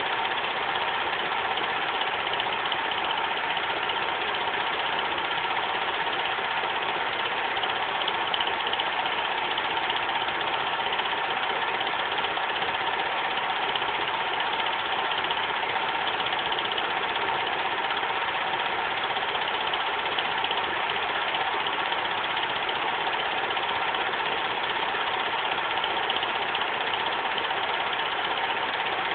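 Bell & Howell dual 8 movie projector running Super 8 film: the steady mechanical whir of its motor and film transport, with a constant tone running through it.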